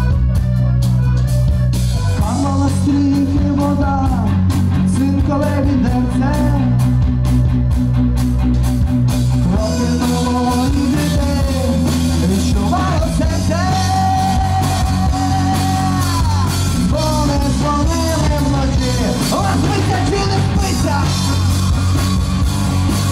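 Rock song with a singer over a heavy, steady bass line; the voice comes in about two seconds in.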